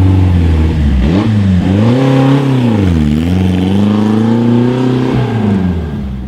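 Classic sports car's engine revving up and down several times as the car pulls away, then holding a steady note before the revs drop and the sound fades as it drives off.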